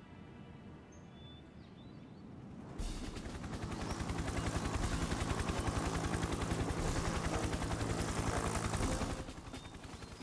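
Helicopter rotor sound effect: a rapid chopping that comes in suddenly about three seconds in, holds steady and loud, then drops away about a second before the end, over faint background music.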